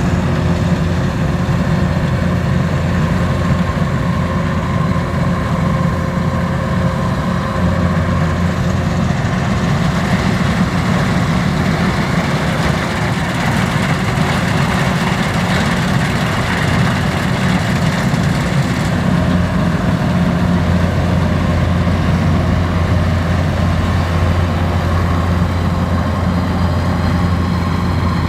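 Kubota DC-93 rice combine harvester's diesel engine running steadily, with a rushing noise that swells for several seconds in the middle.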